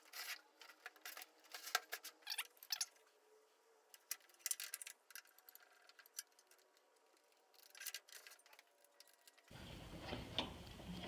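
Faint, scattered clicks and taps from the table saw and stand being handled as the saw is fitted onto the stand. The taps come irregularly over the first few seconds, then only now and then.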